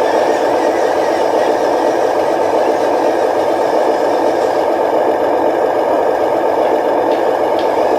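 Electric motor and gearbox of a radio-controlled model construction vehicle running steadily.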